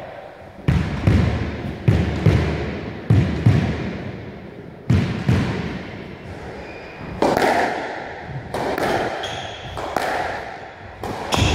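Squash ball being hit in a rally: sharp smacks in quick pairs, racket strike then wall, four times in the first five seconds with footfalls on the wooden floor, then a short lull and a few more hits near the end, ringing in the enclosed court.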